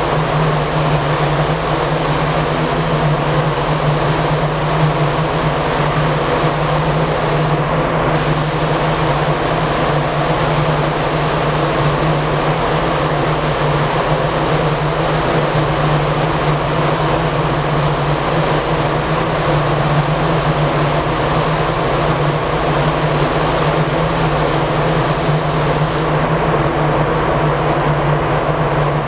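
Compressed-air paint spray gun hissing steadily over a constant low machine hum.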